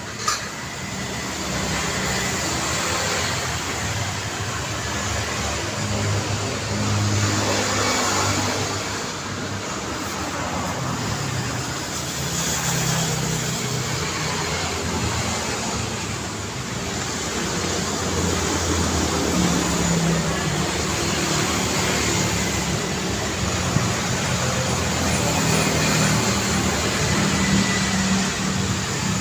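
Busy road traffic: a steady stream of cars and other motor vehicles running and passing by close, with one vehicle sweeping past about a third of the way in. A short sharp knock comes right at the start.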